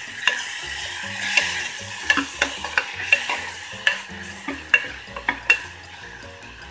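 Sliced onions, green chillies and ginger-garlic paste sizzling in hot oil in an aluminium pressure cooker, stirred with a metal spoon that scrapes and clinks against the pot. The clinks stop near the end and the sizzle carries on more quietly.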